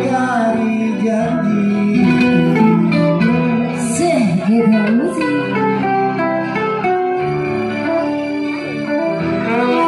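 Live organ tunggal music: an electronic keyboard plays sustained chords and a plucked-string-style melody. A wavering line bends up and down in pitch about four to five seconds in.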